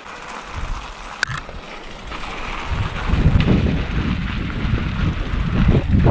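Wind buffeting a helmet camera's microphone over the rumble and rattle of a mountain bike's tyres rolling down a rocky dirt trail. It grows much louder about halfway through.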